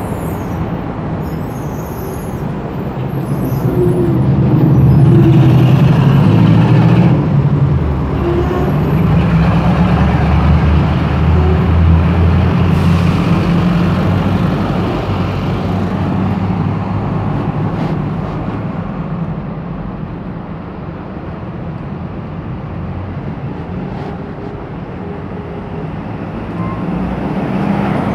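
A bus engine running close by, with street traffic behind it. It swells a few seconds in and eases off after about twenty seconds.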